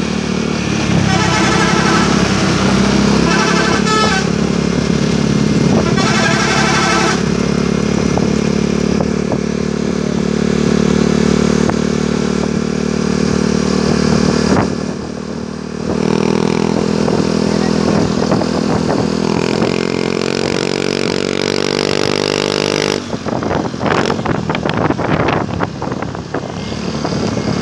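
Road traffic with bus and motorcycle engines running steadily, one engine revving up about two-thirds of the way through.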